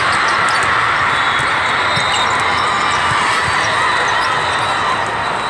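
Echoing din of a large arena hall full of volleyball play: balls being hit and bouncing on several courts at once, with a steady murmur of players and spectators.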